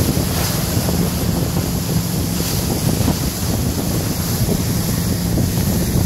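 A motorboat's engine drones steadily under the rush and splash of its wash along the hull, with wind buffeting the microphone.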